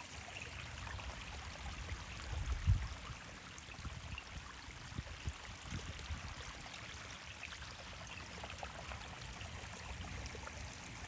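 Small stream of water running steadily over a path, with a few brief low thumps, the loudest about three seconds in.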